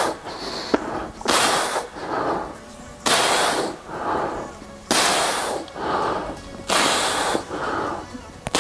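A man breathing hard through a set of bent-over dumbbell rows: four forceful, hissing exhales about two seconds apart, one with each pull, each followed by a quicker, quieter inhale.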